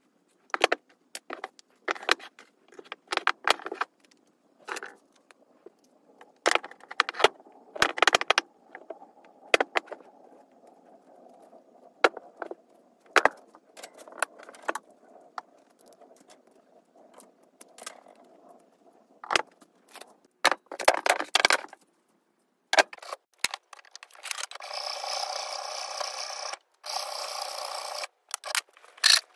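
Scattered clicks, taps and light scraping from hands handling tools and wooden handle scales. Near the end, a hacksaw saws through a wooden axe handle clamped in a vise: a steady scratchy rasp with a couple of brief pauses.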